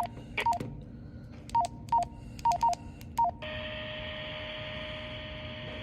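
Touch-tone (DTMF) beeps over a phone line patched onto a NOAA Weather Radio broadcast: about eight short tone pairs, irregularly spaced. A steady tone with mains hum follows, from about three and a half seconds in.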